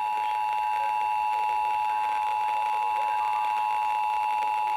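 Emergency Alert System attention signal: the steady two-tone alert of about 853 and 960 Hz sounding together, held without a break. It is the tone that comes just before the spoken warning message.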